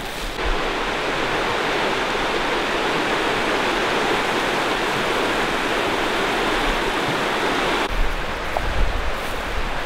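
Steady rushing of a shallow, rocky river running over stones. It cuts off abruptly near the end, leaving quieter low rumbling.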